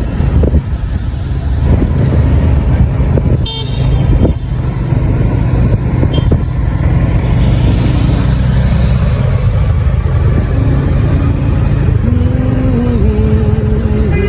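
Motorcycle running steadily on the road, its engine rumble mixed with road noise. Short vehicle horn toots sound about three and a half and six seconds in, and a lower held horn note sounds near the end, dropping a step in pitch.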